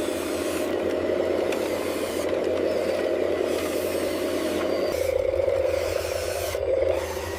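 Motor of an RC construction machine running steadily, with scraping and clattering of the machine working. About five seconds in, a lower hum joins the sound.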